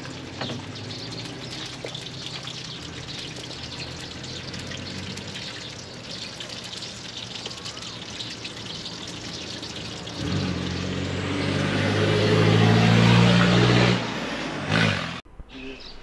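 A motor vehicle passing close by on the road: about ten seconds in, its engine grows steadily louder for three seconds or so, then drops away. Before it there is a steady outdoor background with faint bird chirps.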